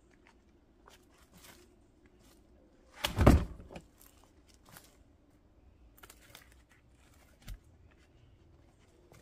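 A firewood round dropped into a plastic wheelbarrow tub with a heavy thunk about three seconds in, amid faint rustling and footsteps in the brush.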